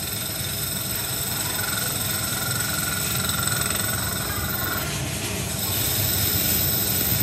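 Lathe cutting a metal motorcycle wheel hub: the spindle runs steadily while the tool cuts, with a faint high whine from the cut through the middle seconds.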